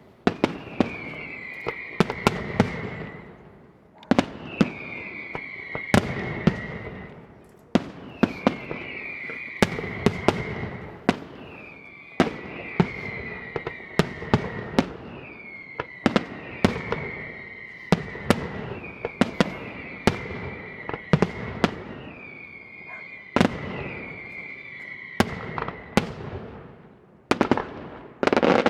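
Daytime fireworks going off: sharp bangs in quick succession, with a tone that falls in pitch and repeats about every two seconds over them. Near the end it breaks into a dense barrage of rapid bangs.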